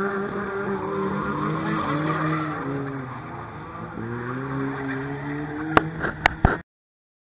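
Stock car engines racing around the oval track, their pitch rising and falling as they accelerate and lift off. A few sharp knocks near the end, then the sound cuts off suddenly.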